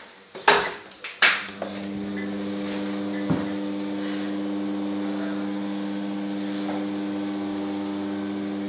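Two sharp clicks less than a second apart as a light switch is flicked, then a steady electrical mains hum starts and holds, from the light or an extractor fan on the same switch.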